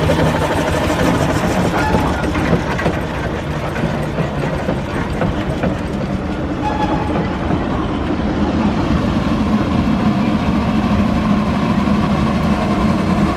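Steam road roller running past at close range: a steady mechanical rumble with rapid clanking from its motion and gearing. From about two-thirds of the way through, a smoother, steadier hum takes over.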